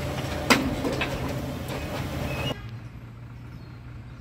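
Truck engine running to drive a hydraulic loader crane, with knocks and clatter of broken wooden planks dropping from the grapple into a metal skip; the loudest knock comes about half a second in, a smaller one about a second in. About two and a half seconds in the sound drops suddenly to a quieter low hum.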